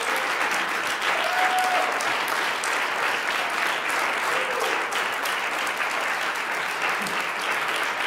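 Concert audience applauding steadily, with a couple of short voices calling out over the clapping.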